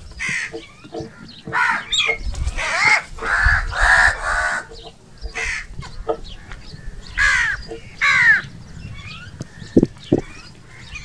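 Crows cawing: a series of harsh caws, several in quick succession a few seconds in, then two more spaced calls later on.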